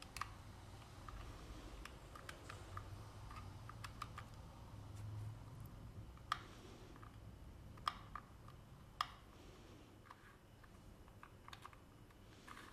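Faint, irregular small clicks and taps of a plastic cube puzzle and a mini screwdriver being handled while the cube's screws are tightened, with a few sharper clicks around the middle.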